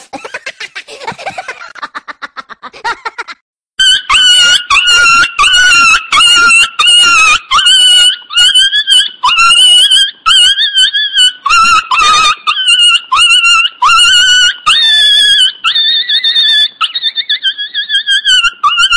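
A dog giving repeated high-pitched whining yelps, about two a second, each rising sharply at its start, coming in loudly after a brief cut to silence about three and a half seconds in.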